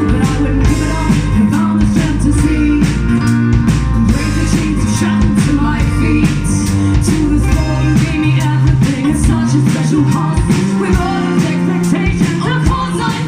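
Rock song played by a band, with strummed guitars, drums and some singing, in a passage without clear lyrics.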